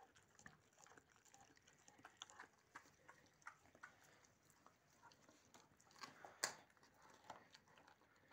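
Faint, irregular wet clicks and crunches of a puppy gnawing a meaty bone, with one sharper click about six and a half seconds in.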